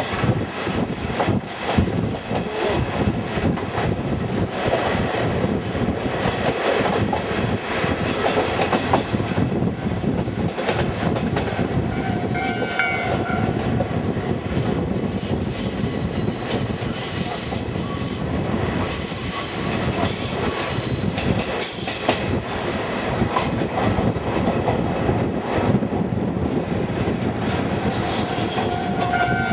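KiHa 48 diesel railcar running on the line, heard through an open window: steady rolling rail noise with wheels clicking over rail joints. The train's horn sounds briefly about twelve seconds in and again near the end.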